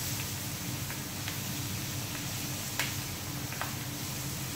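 Sliced onions frying in hot oil in a pan, a steady sizzle, with a few light clicks as a wooden spoon stirs them against the pan, over a low steady hum.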